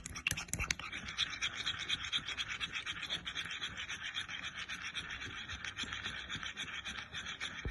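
A utensil beating a mixture of egg, honey and coconut oil in a small bowl: a fast, steady scraping and clicking that stops just at the end.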